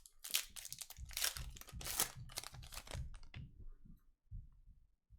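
Trading card pack wrapper crinkling and tearing as it is opened by hand, a run of rustling strokes that dies away after about three seconds into light handling.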